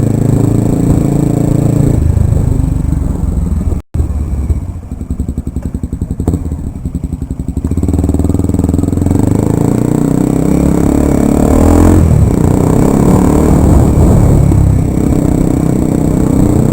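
Kawasaki Ninja 250 Mono's single-cylinder engine running through an aftermarket Akrapovic exhaust while riding. About four seconds in there is a brief cut in the sound. The exhaust then gives an uneven, pulsing lower note for a few seconds before the engine picks up again and runs louder.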